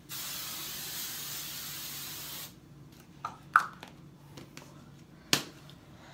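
Aerosol hairspray can spraying in one continuous hiss for about two and a half seconds, then cutting off. A few sharp clicks and knocks follow, the loudest about a second after the spray stops.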